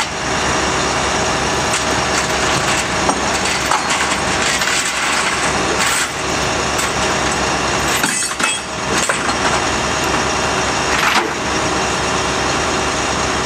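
Rollback truck's engine idling steadily, with occasional sharp metallic clanks of chains and metal being handled.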